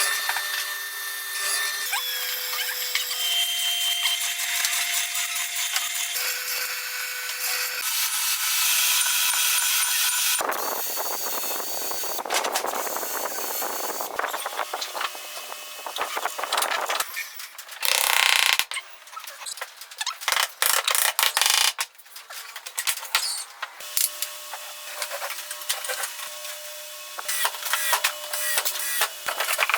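Woodworking tools at work in a series of short cuts: a steady whine that shifts in pitch, a longer stretch of sawing or sanding noise, a short loud burst about eighteen seconds in, and clicks and knocks near the end.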